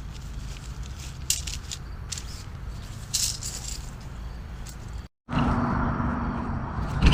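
Camping gear rattling and clicking as it is handled and assembled during tent and cot setup, in scattered sharp clatters. About five seconds in it breaks off, and a louder, steady background noise follows, with a couple of knocks near the end.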